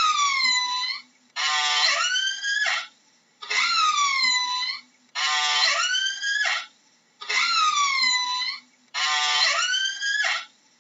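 Killer whale (orca) calls, about six in a row with short gaps, alternating between two kinds: a call that slides down in pitch and curves back up, and a buzzier call.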